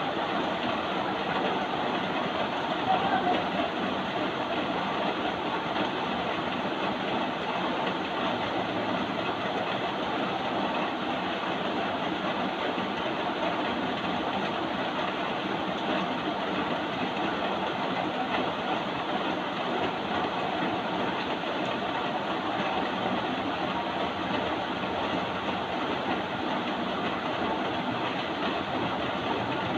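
Steady rain falling, an even, unbroken rushing sound that neither builds nor fades.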